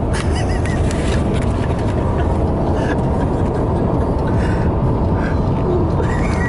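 Steady road and engine noise inside a moving car's cabin, with a faint short squeak near the end.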